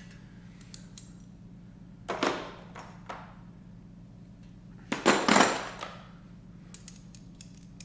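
Metal sockets and a ratchet rattling and clinking as a socket is picked out and fitted. There are two short bursts of rattling, about two and five seconds in, the second louder, then a few light clicks near the end, over a steady low hum.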